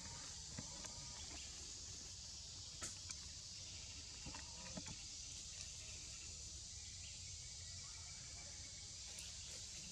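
Steady high insect drone of a tropical forest, with a faint low rumble and a few brief crackles as a young macaque climbs through thin branches; the sharpest crackles come about three seconds in.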